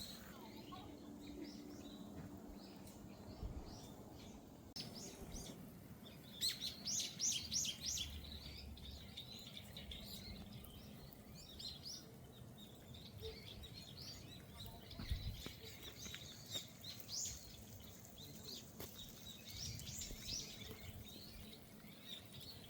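Small birds chirping and singing, with a quick run of high chirps about six seconds in and scattered calls after.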